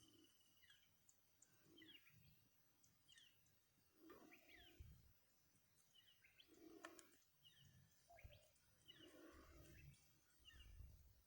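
Faint outdoor ambience: short, high bird chirps that fall in pitch, about one a second, over soft low rumbles.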